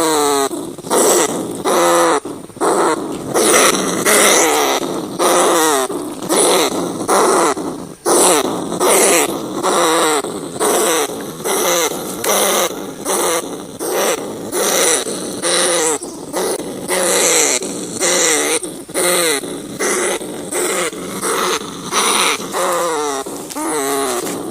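Field rats squealing and chattering: a continuous run of short, wavering, pitched cries, several a second, with barely a pause between them.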